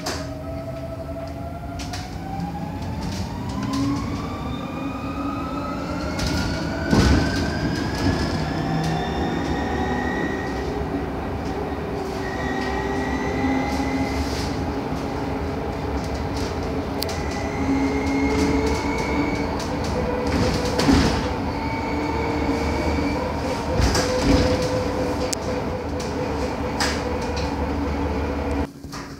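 Electric traction motor of a Solaris Urbino 12 Electric bus whining as heard from inside the cabin: several tones climb in pitch together for about the first ten seconds as the bus gathers speed, then hold roughly level, over steady road noise. Occasional knocks and rattles from the body come through, the sharpest about seven seconds in.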